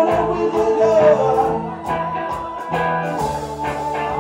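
Live band playing a reggae song on electric guitars, bass and drums, with a sung vocal line over the first second and a half that then gives way to the instruments.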